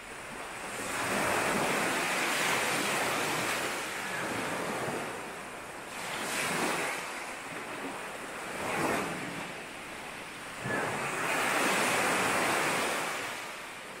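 Sea waves breaking and washing up a beach in slow surges, the biggest swells building about a second in and again near the end, with wind buffeting the microphone.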